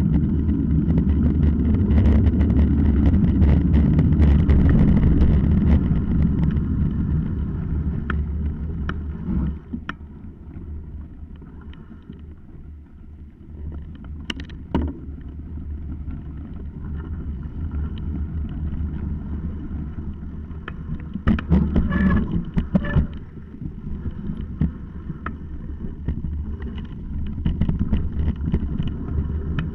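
Mountain bike riding fast over a gravel dirt track: wind rushing on the microphone, tyres rumbling and the bike rattling and knocking over bumps. The rumble is heaviest for the first several seconds, eases off about a third of the way in, and picks up again near the end, with a short cluster of knocks about three quarters of the way in.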